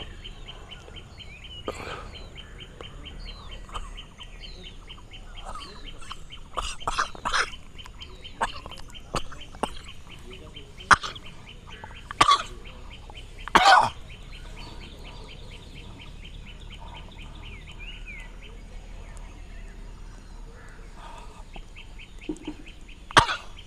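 Birds chirping over a rapid, steady high trill, broken by a few short loud bursts of breath, about 11, 12 and 14 seconds in and again near the end, as a sutra neti thread is passed through the nose.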